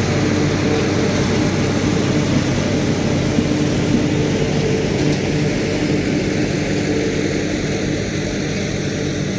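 Tractor engine and forage harvester running steadily under load while chopping corn for silage, with a constant engine drone and machine noise.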